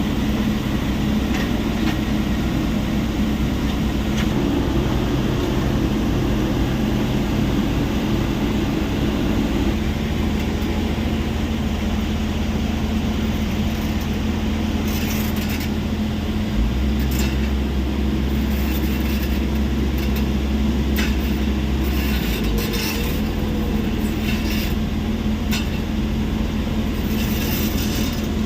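Heavy diesel machinery running steadily at a stone crushing plant. Its low engine note shifts in steps several times. From about halfway on, scattered sharp clacks and knocks sound over the drone.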